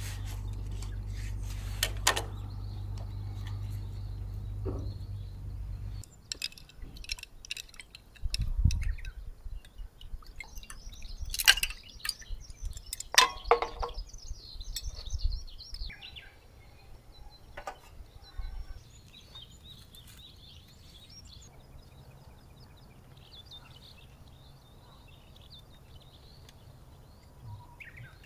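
Small birds chirping, with scattered sharp clicks and knocks through the middle; a low steady hum runs under the first six seconds and then stops.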